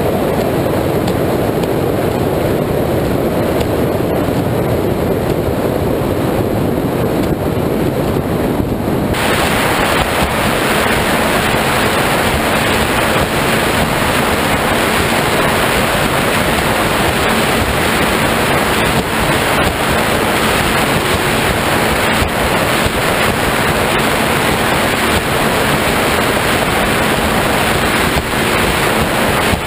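High-performance powerboat running at speed: a loud, steady rush of wind buffeting the microphone and water spray off the hull. About nine seconds in the sound changes abruptly and turns much hissier.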